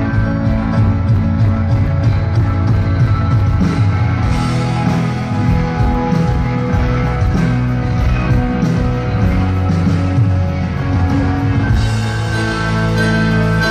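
Live rock band playing a slow rock song, led by electric guitar.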